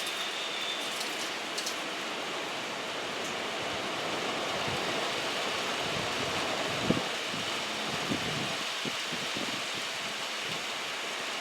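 Steady hiss of rain falling, with one sharp knock about seven seconds in.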